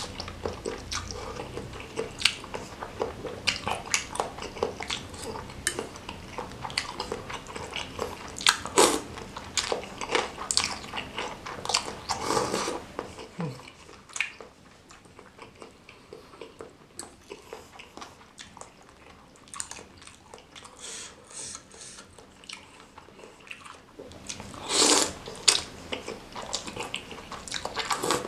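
Close-up eating sounds: noodles in spicy meatball soup slurped and chewed, with a metal fork clicking against a bowl. The middle stretch is quieter, and a loud slurp comes near the end.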